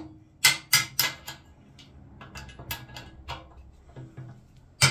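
Small steel chisel levering at the riveted steering-lock cover on a steel motorcycle frame head: sharp metal clicks and scrapes in two quick clusters of about four, with one more click near the end, as the cover works loose.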